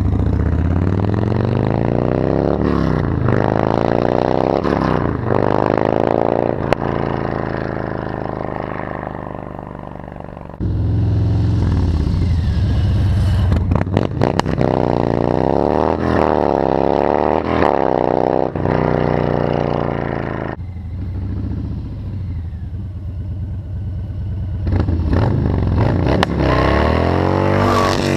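Harley-Davidson Low Rider S's Stage 1 117 V-twin through a Two Brothers Racing 2-into-1 exhaust, revving hard and repeatedly, pitch climbing and dropping as the bike pulls away through the gears. The sound jumps abruptly in loudness about ten and twenty seconds in.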